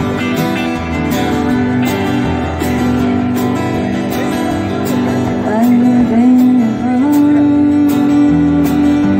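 Live band playing: strummed acoustic guitar with electric guitar and a drum kit keeping a steady cymbal beat. A woman's singing voice comes in about halfway through, sliding between notes and then holding one long note near the end.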